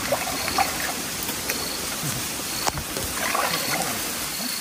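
Shallow muddy water splashing and sloshing as a person wades through it and gropes with his hands for fish, with scattered small splashes and clicks.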